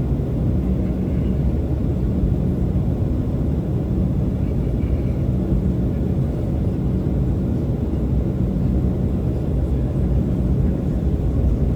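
Steady low rumble of an Embraer 195 airliner's General Electric CF34-10E turbofan engines heard from inside the passenger cabin, with a faint steady hum over it.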